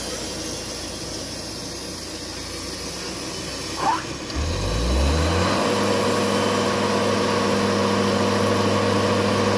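Wood-Mizer LT70 sawmill engine running at idle, then throttled up about four seconds in, its pitch rising over about a second to a steady, louder high speed. A short squeak comes just before it speeds up.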